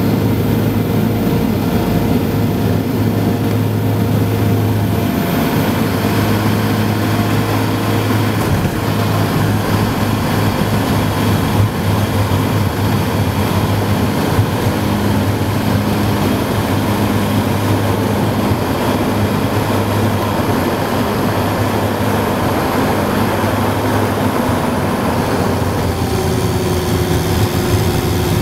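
Twin Garrett TPE331 turboprop engines and propellers of a Jetstream 31 droning steadily, heard from inside the cabin during the approach and landing roll. A single brief knock sounds about twelve seconds in, and near the end the engine note changes pitch.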